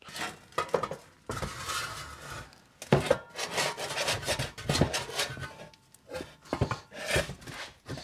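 Steel drum of a Swardman Electra 2.0 reel mower's split drive roller being slid onto its axle over the differential, metal scraping and rubbing in several pushes with a few sharper knocks.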